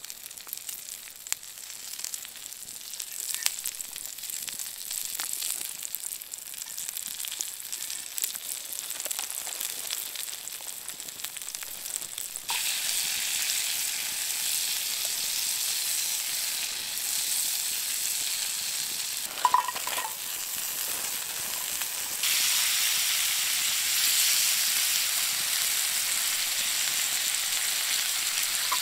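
Asparagus frying in butter in a cast iron pan over a campfire, a steady sizzle. It steps up louder about halfway through and again near the end, with a few light clicks.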